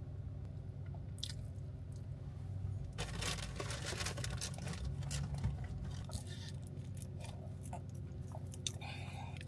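Close-up chewing and crunching of a crisp snack, starting about three seconds in and going on in quick irregular crunches, over a low steady hum.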